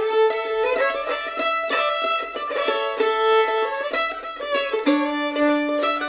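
Fiddle and mandolin playing an old-time fiddle tune together: the fiddle carries the bowed melody while the mandolin picks along in a steady rhythm. A lower fiddle note is held for about a second near the end.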